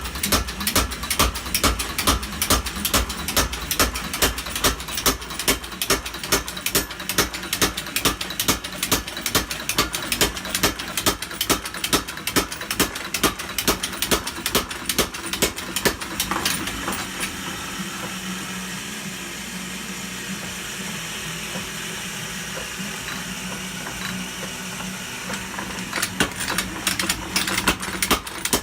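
Custom-built mechanical power hammer running, its ram striking in a steady rhythm of about two to three blows a second. Past the middle the blows stop for several seconds while the machine keeps running with a steady hum, then the blows resume near the end.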